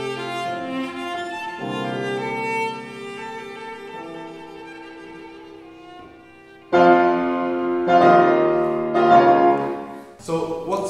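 Cello bowed with piano accompaniment, playing held, vibrato-rich notes. The music grows softer, then comes in suddenly much louder about seven seconds in.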